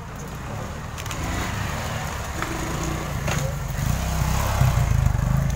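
Motorcycle engine approaching and growing steadily louder, a low pulsing rumble.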